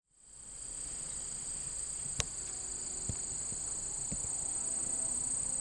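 Steady high-pitched chorus of insects, fading in at the start. There is one sharp click about two seconds in and two soft low knocks a little later.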